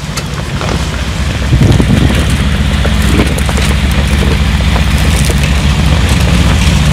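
Mercedes-Benz G 500 4x4² concept's twin-turbo V8 running as the truck drives over a rough gravel track: a steady, deep engine rumble that grows louder about a second and a half in, with scattered crunches from the tyres on stones.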